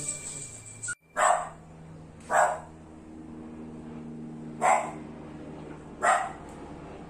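Poodle puppy barking: four short, high barks spaced one to two seconds apart.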